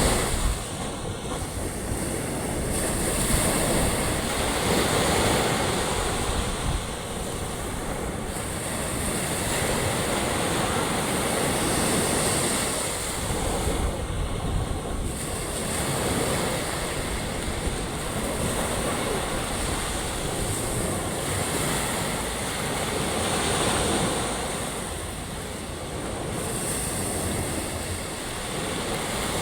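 Ocean surf washing onto a shore: a continuous rushing wash that swells and ebbs every several seconds, with wind on the microphone.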